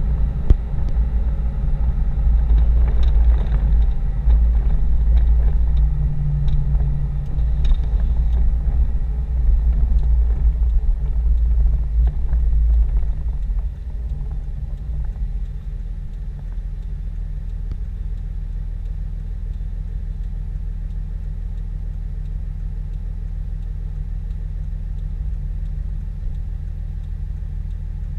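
5.9-litre Cummins straight-six turbo-diesel of a 2007 Dodge Ram 2500, heard from inside the cab, running under way; about halfway through it drops to a quieter, steady idle.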